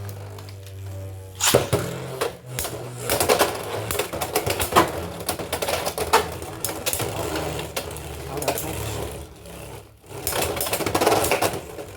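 Beyblade X tops, one fitted with a 3D-printed bit, spinning and clashing in a plastic stadium: a steady whirring hum with rapid clattering hits. The clatter eases about ten seconds in, then a fresh burst of clattering follows.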